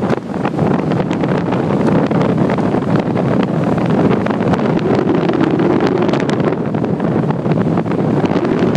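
Loud wind rushing over the microphone of a phone carried while skiing downhill, with many short clicks and scrapes running through it.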